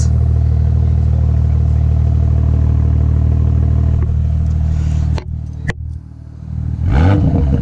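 BMW B58 3.0-litre turbocharged inline-six exhaust in Comfort mode, held steadily at about two thousand rpm. About five seconds in the revs drop with a couple of sharp cracks, and near the end there is a short blip of revs.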